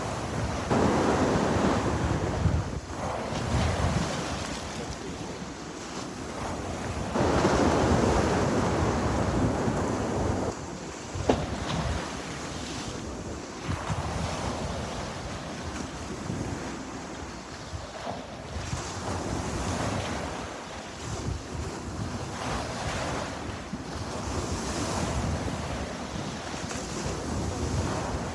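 Sea waves breaking on the shore, the surf swelling and washing out, with a larger wave about a second in and another at about seven seconds, then smaller ones. Wind noise on the microphone runs under it, and a brief sharp click comes at about eleven seconds.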